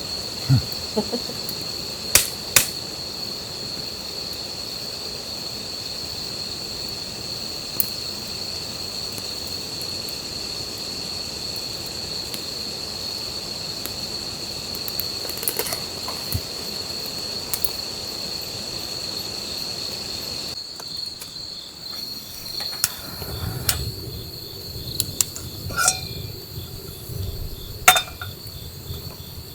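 Insects calling in one steady, unbroken high tone. About two-thirds of the way through the sound changes abruptly: the insect tone is fainter, and scattered clicks and knocks are heard to the end.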